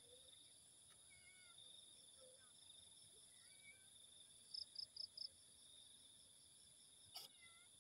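Faint steady high-pitched chorus of crickets or similar insects, with scattered faint bird chirps. A little past halfway come four quick high chirps in a row, and a brief click sounds near the end.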